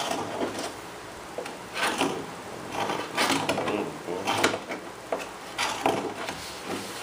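Irregular scrapes and knocks of parts and tools being handled on a workbench, coming in short bursts about every second or two.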